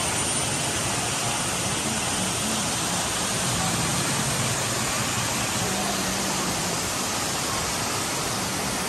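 Steady rush of a rain-swollen jungle waterfall and stream, muddy water pouring over a concrete weir and cascading down rocks.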